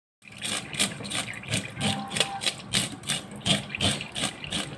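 A blade scraping the scales off a whole red snapper in quick, even strokes, about three a second.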